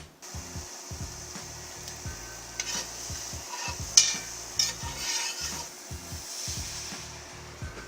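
Food sizzling in a pan on the stove while a utensil stirs and scrapes it, with a few sharp clinks of the utensil against the pan.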